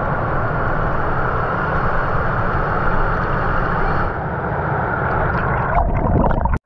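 Shallow water rushing over the dam's stone overflow steps, heard right at the water surface with a heavy rumble of water and wind against the microphone. Near the end it turns to close, irregular sloshing as water washes over the microphone, then cuts off suddenly.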